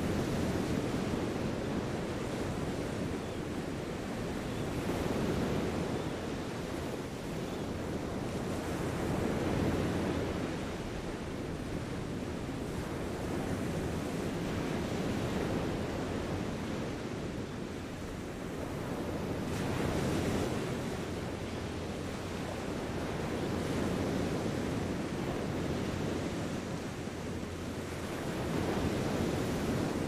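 Small sea waves washing onto a sandy beach, the wash swelling and easing every four to five seconds, with wind on the microphone.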